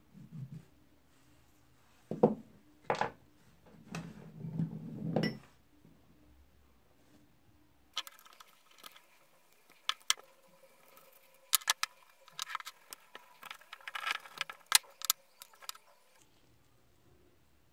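Metal parts of an old breast drill clinking and rattling as they are handled. A few dull knocks come in the first seconds, then a longer run of sharp metallic clinks with a ringing tone under them.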